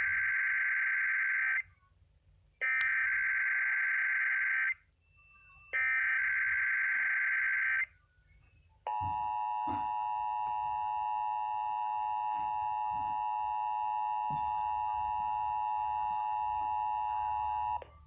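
EAS/SAME digital header sent three times through a NOAA weather radio's speaker: three harsh two-second data bursts a second apart. About nine seconds in, a steady alert tone follows and holds for about nine seconds before cutting off, the warning alarm tone of a Required Monthly Test.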